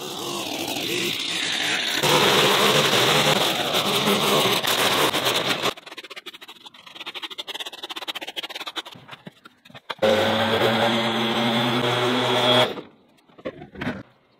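A power tool's motor running loudly in two stretches, the second cutting off suddenly, with lighter clicks and knocks between them.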